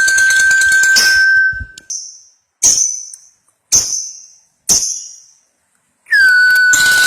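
Lovebird 'ngekek': a long, rapid, high-pitched chattering trill that breaks off about two seconds in, followed by three short sharp chirps about a second apart, before another long trill starts near the end.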